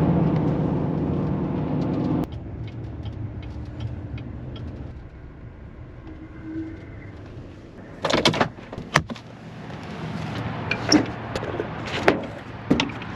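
A vehicle engine running steadily, louder for about the first two seconds, with several sharp clicks and clunks from about eight seconds in.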